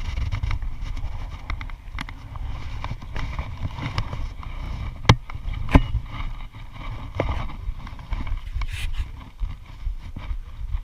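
Steady low rumble on the microphone with scattered light clicks and two sharp knocks a little over halfway through.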